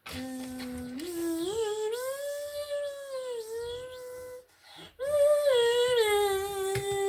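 A high voice humming two long wordless phrases. The first steps up from a low held note and arches over; after a brief pause near the middle, the second starts high and settles onto a long steady note.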